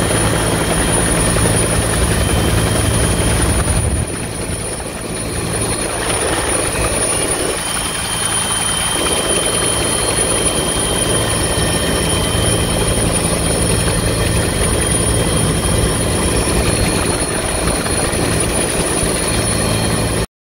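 Rescue helicopter's rotor and engines running steadily in a low hover over the sea, heard loud through the open cabin door; the sound cuts off suddenly near the end.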